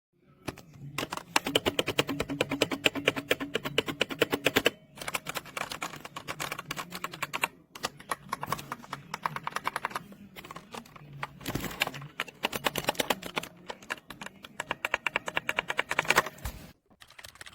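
Fast typing on the Newmen GM610 mechanical keyboard: rapid runs of key clicks that stop briefly about five and eight seconds in, then end shortly before the close.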